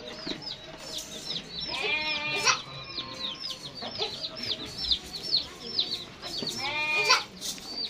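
Goat bleating twice, a wavering bleat about two seconds in and another about seven seconds in, over steady chirping of small birds.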